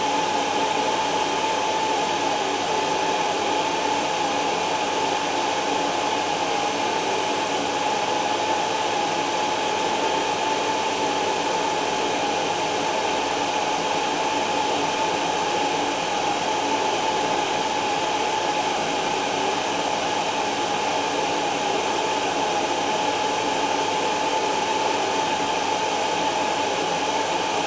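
Vacuum cleaner running steadily: an even rushing hum with a steady high whine in it.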